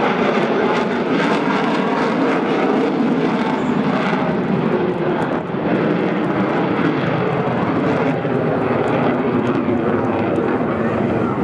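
F-16 fighter jet's engine at high power as the jet flies past with gear down and pulls up into a steep climb: loud, steady jet noise with no breaks.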